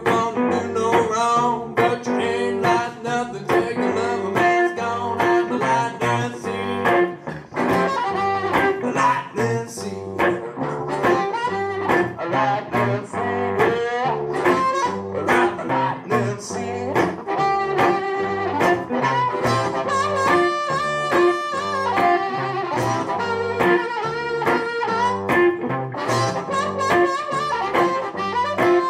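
Live one-man-band blues: electric guitar played over a steady beat, with harmonica wailing over it. The harmonica plays long held notes in the second half.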